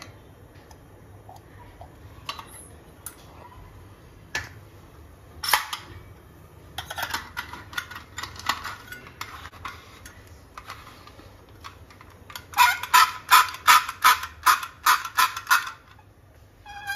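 Hand-cranked stainless-steel sev press being filled, closed and then cranked: scattered metal clicks and scrapes, then near the end a loud, fast run of squeaks, about four a second, as the screw handle is turned to push the dough down.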